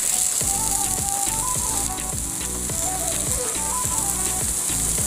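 Potato pizza base sizzling in oil in a flat pan, a steady high hiss, under background music with a melody and a regular beat.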